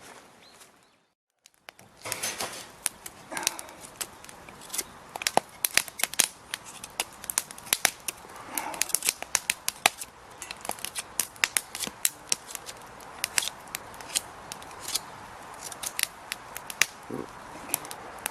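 Wood campfire crackling, with many sharp, irregular pops and snaps over a faint hiss, starting about two seconds in after a moment of silence.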